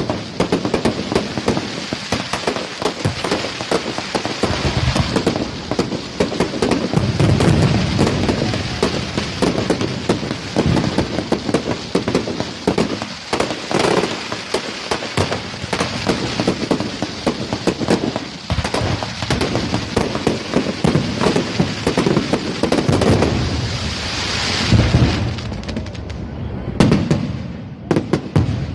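Fireworks going off in dense succession: a continuous crackle of many small bangs mixed with heavier booms, thinning to a few separate bangs near the end.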